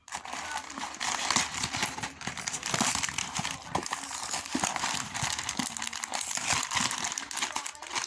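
Plastic candy and snack wrappers crinkling and rustling as they are handled: a dense, continuous run of small crackles.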